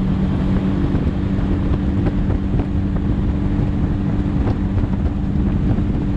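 Tiller-steered outboard motor on a small jon boat running steadily at speed, a constant engine hum under the rush of wind on the microphone.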